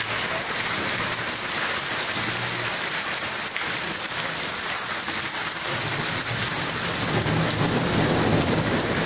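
Heavy rain pouring down, with rainwater running along a flooded street. A low rumble builds in the second half.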